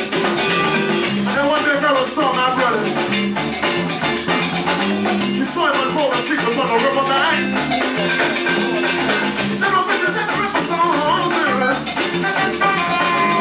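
A live band playing, with a winding saxophone melody over a steady, repeating groove from the rhythm section.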